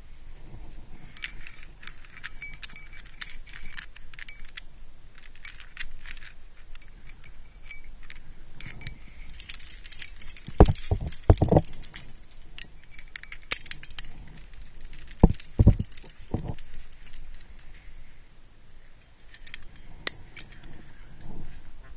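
Metal climbing gear, carabiners and cams on a trad rack, jingling and clinking as the climber moves and places a cam in the crack. Loud thumps come twice in short clusters, a little before halfway and again past two thirds of the way.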